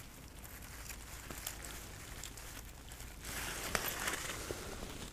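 Close rustling of grass and jacket fabric with scattered small clicks and crackles, as hands reach into the grass. The rustling gets louder about three seconds in.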